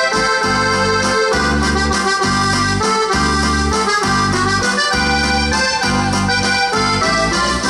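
Instrumental break of an upbeat German Volksmusik song played from a backing track, with a steady bouncing bass line under a busy reedy melody and no singing.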